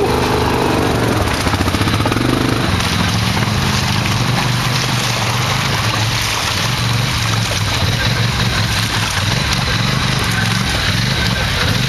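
ATV engine running at steady revs as the quad churns through a deep, water-filled mud pit, with muddy water sloshing around it. The revs lift slightly a couple of seconds in, then hold.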